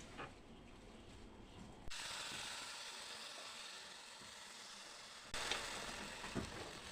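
Pancake batter sizzling in hot oil in a frying pan, a hiss that starts suddenly about two seconds in as the batter meets the oil.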